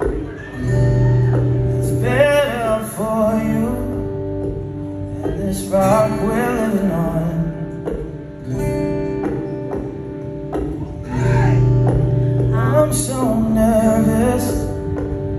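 Live solo acoustic guitar strummed in ringing chords while a man sings, the sung lines coming in phrases about two, six and thirteen seconds in.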